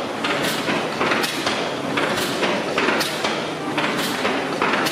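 500 indicated horsepower cross-compound steam mill engine running slowly: a regular clatter of its Corliss valve gear with steam hiss. The clatter comes in strokes a little under a second apart, with weaker ones between.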